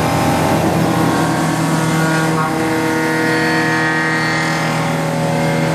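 CNC milling machine cutting a metal turbine blade with a carbide milling cutter under flood coolant: a steady machining drone made of several steady tones, over the hiss of the coolant spray.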